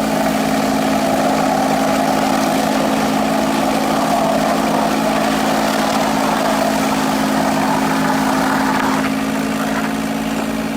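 1937 sawmill machinery running steadily: a constant low hum with a whirring, rushing band above it. The upper part of the sound drops away about nine seconds in while the hum carries on.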